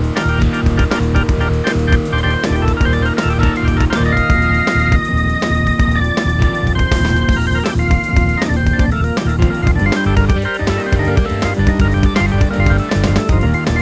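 KORG NAUTILUS synthesizer playing a Combination preset: layered organ-like keyboard chords over a steady drum pattern, with the chords changing about four seconds in and again about ten seconds in.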